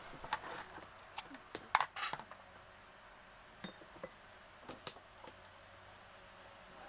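Light clicks and taps of small hard parts being handled, scattered irregularly with several in quick succession in the first two seconds and a few more later.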